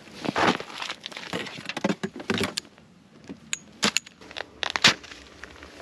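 Rummaging through stored winter gear: irregular rustling, clicks and a few sharp knocks as items are shifted about, the loudest knocks near the end.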